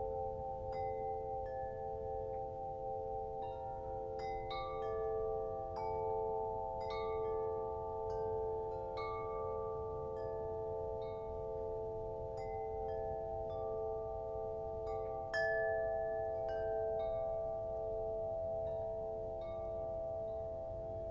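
Metallic chimes struck about once a second, each note ringing on and overlapping the others into a sustained shimmering chord, with one louder strike about fifteen seconds in. A low rumble sits underneath.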